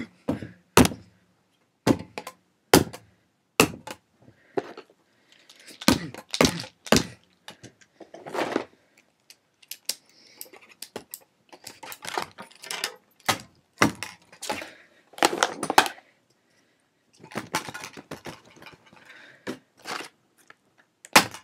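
A compact disc being smashed: irregular sharp cracks and knocks, some in quick clusters, with short pauses between.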